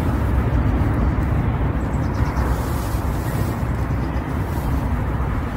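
Wind buffeting the microphone outdoors: a steady low rumble with no distinct events.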